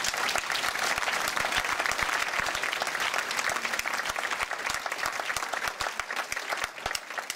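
Audience applauding, many hands clapping together at a steady level and thinning a little near the end.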